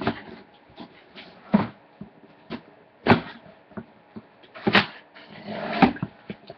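Oversized cardboard shipping box being torn and pulled open by hand: short, sharp cardboard rips and rustles, about five of them a second and a half apart, with a longer scraping rustle near the end.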